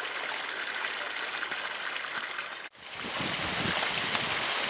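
Hooked fish splashing at the pond surface over a steady watery hiss. Partway through, the sound cuts out abruptly and gives way to a louder steady hiss with gusty low rumbling, wind on the microphone.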